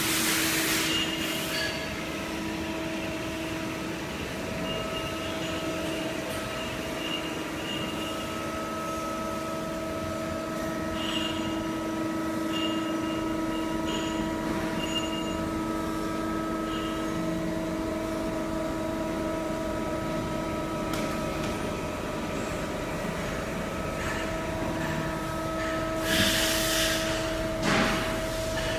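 Shoe toe-lasting machine running: a steady mechanical hum with several held tones, and two short bursts of hiss, one at the start and one about 26 seconds in.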